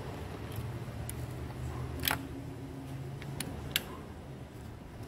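Sharp clicks of plastic hose fittings being handled and snapped into place in the engine bay, over a steady low hum. A few light clicks come first, then two louder snaps about two seconds and nearly four seconds in.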